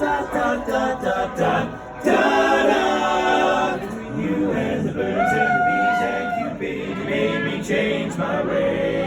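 Two barbershop quartets singing together a cappella in close four-part harmony, opening a song with sustained chords. A loud chord swells in about two seconds in and is held for about two seconds.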